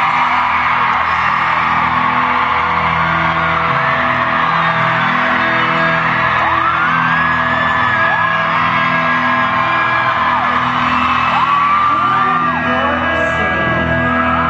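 Live concert music with steady held chords under a large arena crowd screaming and whooping; high cheering calls rise, hold and fall several times, more of them in the second half.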